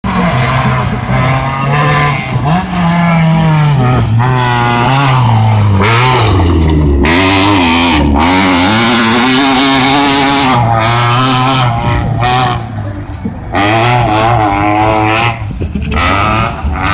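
Rally car engine revving hard, its pitch climbing and dropping again and again through gear changes, with brief lifts off the throttle in the second half.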